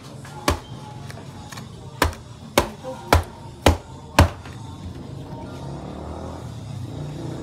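A heavy knife chopping through a red snapper's head on a thick wooden chopping block: six sharp chops, a single one first, then five more about half a second apart, stopping a little after four seconds in.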